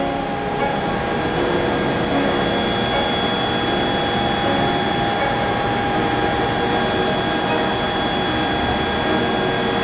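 ACER VMC 1824 vertical machining center running: a steady machine whine of several high tones over a dense hiss.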